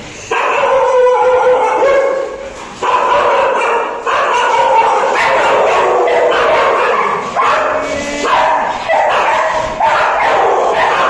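Many kennelled dogs barking and yelping at once, with overlapping calls and hardly a break.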